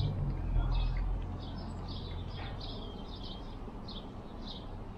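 A small songbird singing, a run of quick high chirps at about two or three a second. A low rumble in the first second.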